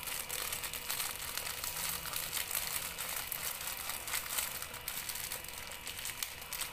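Thin plastic bag crinkling and rustling as dry misua noodles are broken out of it by hand, with many small crackles.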